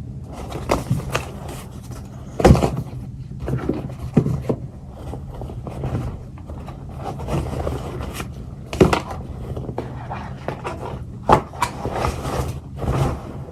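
Items being handled on a table: paper and packaging rustling and scraping, with a few sharp knocks about two and a half, nine and eleven seconds in.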